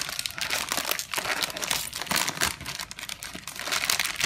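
A plastic packet of bánh tráng xốp spring roll wrappers crinkling and rustling irregularly as hands open it and handle it.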